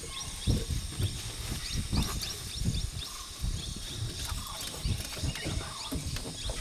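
Bush ambience: insects droning steadily and birds chirping, with irregular low thumps and rustles throughout.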